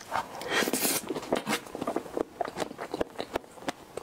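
Close-miked mouth sounds of eating a spoonful of strawberry cream cake cup: a noisy suck as the spoon goes into the mouth about half a second in, then soft, wet chewing with many small clicks and smacks.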